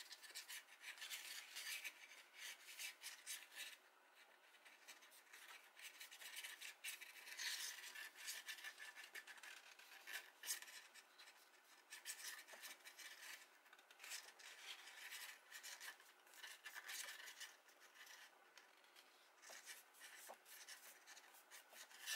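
Faint rustling and rubbing of cardstock being folded and creased by hand along its score lines, with small clicks now and then.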